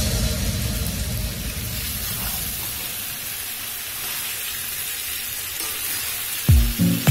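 Chicken pieces, potatoes and onion masala sizzling steadily as they fry in a steel kadai while a spatula stirs them. Background music with a beat comes back in near the end.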